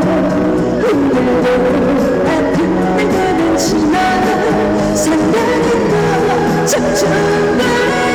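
Live trot song: a woman singing a slow, held melody with vibrato over instrumental accompaniment, amplified through a sound system.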